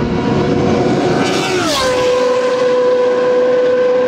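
Historic single-seater racing car at full throttle flying past: its high engine note drops sharply in pitch as it goes by, about a second and a half in, then holds a steady lower note as it pulls away.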